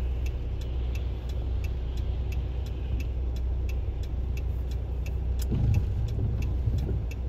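Car cabin road noise while driving on a wet road: a steady low rumble, with light, even ticking at about three ticks a second.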